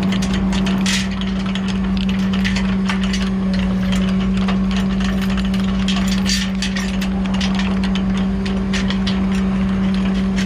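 Tow truck's diesel engine running at a steady speed with a constant hum, over irregular clicks and rattles from a trailer jack being hand-cranked up.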